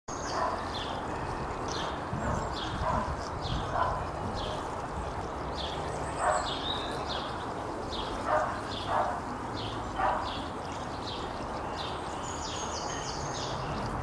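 Wind blowing through a leafy tree, a steady rustling hiss with some low rumble. Over it a bird repeats a short falling call about twice a second, and there are a few short barks, the loudest about six to ten seconds in.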